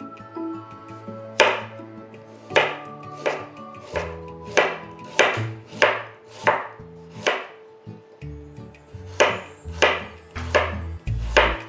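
Kitchen knife chopping on a cutting board: about a dozen sharp strikes at an unhurried, uneven pace, with a short pause past the middle, over light background music.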